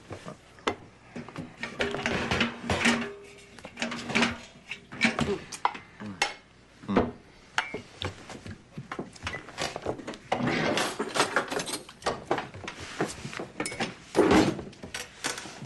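Clinks and clatter of dishes and cutlery handled on a cluttered kitchen table: many short, sharp knocks, with a louder knock near the end.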